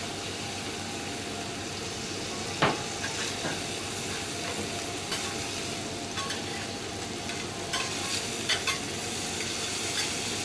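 Slices of Chateaubriand beef fillet sizzling steadily on a hot steel teppanyaki griddle. Metal spatulas click and scrape against the griddle now and then, with the sharpest click about a quarter of the way in.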